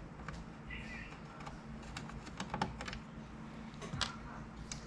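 Scattered light clicks and taps of an Allen wrench and small screws being handled while the bottom screws of a resin printer are taken out. A small cluster of clicks comes a little past halfway and another near the end, over a low steady hum.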